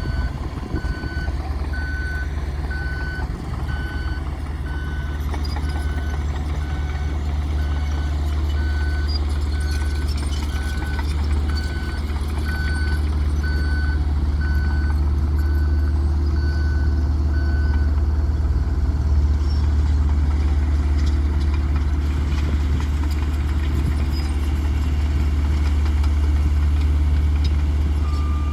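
Heavy construction vehicle's engine running steadily while its reversing alarm beeps about once a second; the beeping stops about two-thirds of the way through, and another, slightly lower-pitched reversing alarm starts near the end.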